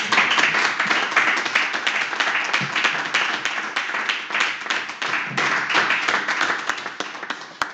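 A small group applauding, many pairs of hands clapping together, dying away near the end.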